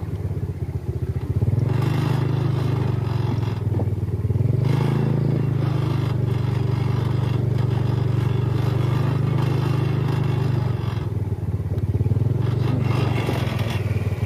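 Small motorbike engine running at low speed, with its tyres clattering and scraping over the loose planks of a wooden suspension bridge. The engine note picks up a little about two seconds in and again near five seconds, then eases off around eleven seconds.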